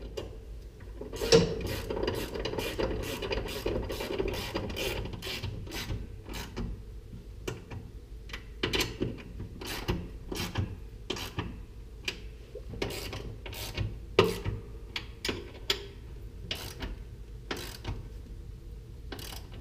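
Socket ratchet wrench clicking in short irregular spells as bolts on the transmission mounting bracket are tightened. A sharp metal clank comes about a second in and another about two-thirds of the way through.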